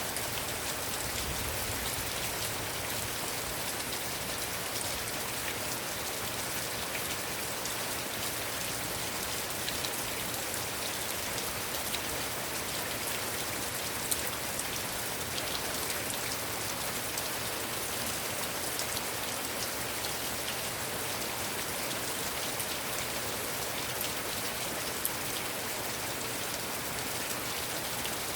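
Heavy rain falling steadily: an even hiss, with now and then a single louder drop ticking out of it.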